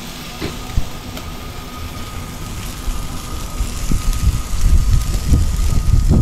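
Duck heads sizzling on a barbecue grill, under wind buffeting the microphone in low rumbling gusts that grow stronger in the second half.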